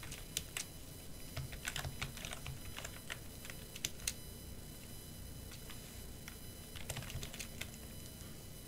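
Computer keyboard typing: a run of keystrokes through the first four seconds, a pause, then a few more keystrokes about seven seconds in, as a login name, a password and a short command are entered.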